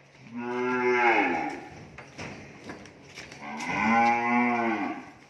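Young black cow mooing twice, each call about a second long, rising then falling in pitch.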